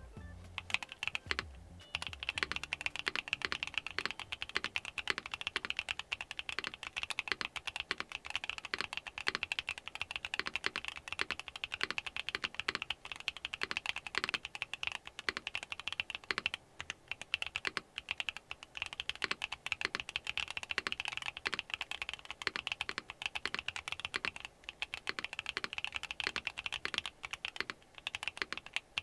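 Typing test on a Neo 70 mechanical keyboard with Akko Creamy Purple Pro tactile switches and GMK Modo 2 keycaps: a fast, continuous stream of clacky keystrokes that starts about two seconds in.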